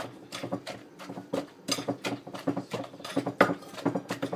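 Pestle (sak) pounding green papaya salad in a Thai krok mortar: quick, uneven knocks, about three to four a second, mixing the wet ingredients together.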